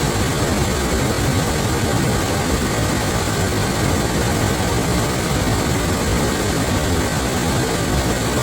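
Waterfall: a steady, unbroken rush of falling water, heavy in the low end.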